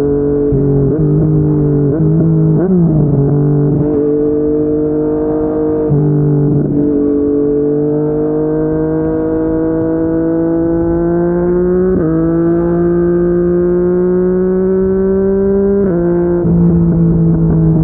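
Yamaha MT-09's inline three-cylinder engine through a Yoshimura R55 slip-on exhaust, heard from on the bike while riding. The engine note climbs slowly for several seconds at a time, broken by several sudden drops and jumps in pitch.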